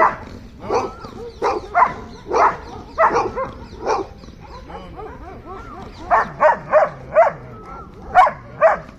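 Dog barking at another dog in angry short barks, one after another about half a second apart. The barking pauses for about two seconds midway, then comes back in a quicker run.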